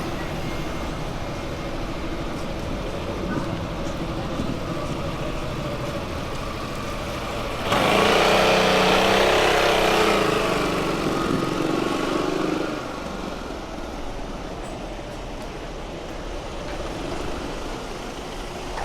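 Street ambience, with a motor vehicle's engine running loudly close by for about five seconds in the middle, starting and stopping abruptly.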